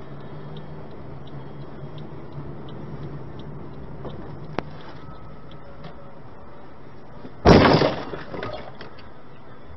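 A sudden loud crash about three quarters of the way in, dying away over about a second: a car rear-ending the car ahead at low speed, recorded from inside the striking car by its dash camera. Before it, a steady low hum of the car on the road, with one sharp click.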